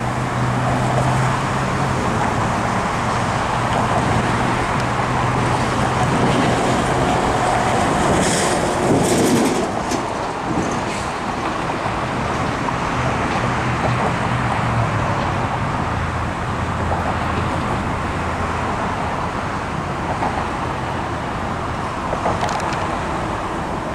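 Road traffic on a busy multi-lane city street: a steady rush of cars and SUVs passing, with a low engine hum underneath. One vehicle passes louder about nine seconds in.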